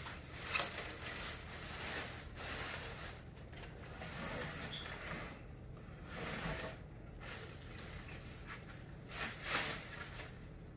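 Clear plastic packaging bag crinkling and rustling irregularly as a 3D printer is worked loose and lifted out of it, with louder rustles just after the start and again near the end.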